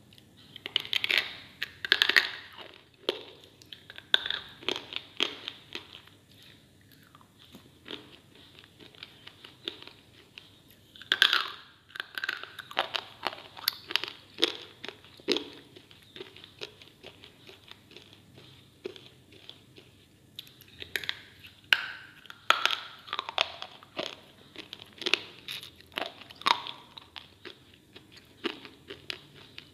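A person biting and chewing pieces of white slate close to the microphone: clusters of sharp, brittle crunches, loudest at about one second, at about eleven seconds and again from about twenty-one seconds, with quieter chewing crunches between.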